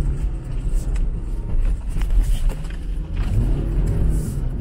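2020 Land Rover Defender 110's engine revving hard under load as it powers up a steep muddy slope, heard inside the cabin with a heavy low rumble; the revs climb about three seconds in, and there are a few knocks from the body and suspension.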